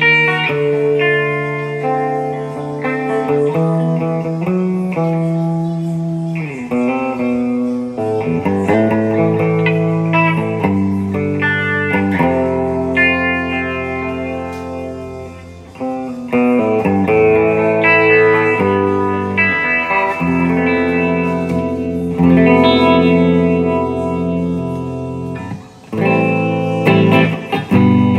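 Gibson LPJ electric guitar played solo: chords and melody lines with long ringing notes. The playing drops off briefly about halfway through and again near the end.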